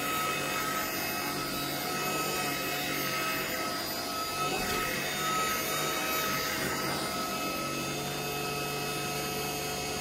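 Tineco A11 Hero cordless stick vacuum running steadily over a pile rug: an even hum with a thin high whine on top.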